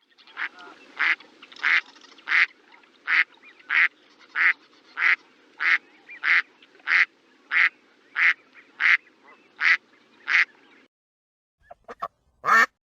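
A duck quacking over and over in a steady rhythm, about three quacks every two seconds. The calls stop, then a few quicker, shorter calls come near the end, the last one the loudest.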